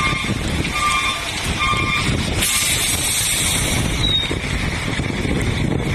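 A heavy lorry's engine rumbles low as it moves along a flooded road, and a beeping warning alarm sounds three times, about one beep every 0.8 s. After about two seconds the beeping stops and gives way to a steady rush of wind and rain noise on the microphone.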